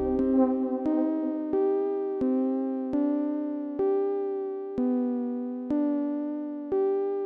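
Music: a lone keyboard playing soft chords, a new chord struck about once a second and fading before the next, with the bass and beat dropped out.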